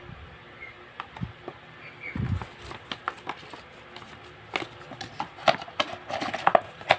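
Handling of a gimbal stabilizer and its packaging during unboxing: scattered clicks and light taps, a soft thump about two seconds in, and more frequent clicks in the last few seconds.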